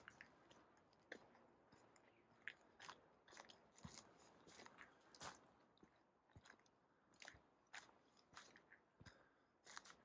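Faint crunching footsteps on a dirt forest trail: irregular crackles of twigs and debris underfoot, about two a second.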